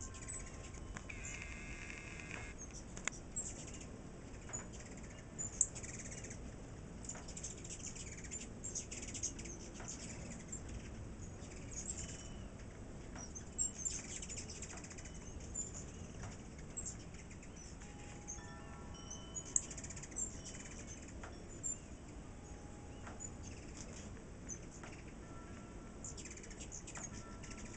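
A crowd of ruby-throated hummingbirds chipping and twittering at feeders: many rapid, very high squeaky chips. Now and then wind chimes ring with several steady tones together, most clearly near the start and about two-thirds of the way through.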